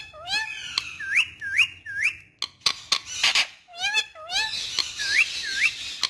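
Indian ringneck parrot whistling: a quick series of short rising whistles and upswept chirps, mixed with sharp clicks and a couple of harsher chattering bursts.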